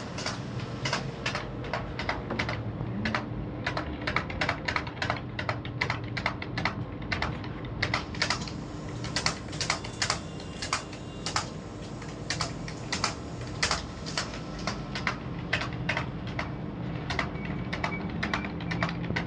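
Computer keyboard being typed fast and continuously, a rapid run of keystrokes several a second, as in a timed speed-typing test at around 60 words per minute.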